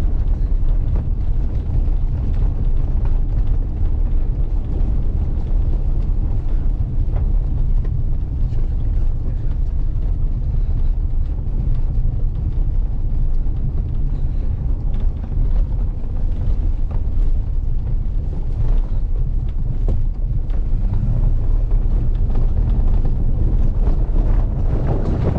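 Steady low rumble of an SUV driving along a rough dirt track, heard from inside the cabin: tyre and road noise mixed with wind, with scattered small knocks throughout.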